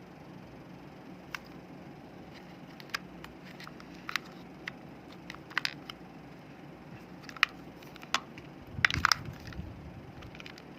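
Sharp plastic clicks of air-conditioner remote control buttons being pressed, one every second or so, with a short burst of clicking and handling rattle near the end.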